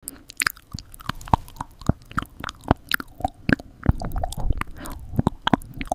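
Close-up chewing and biting sounds of a banana being eaten: a long run of short, irregular mouth clicks and smacks.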